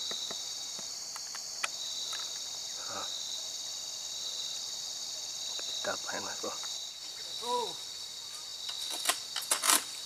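A steady, high-pitched chorus of insects shrilling without pause, with a few short clicks near the end.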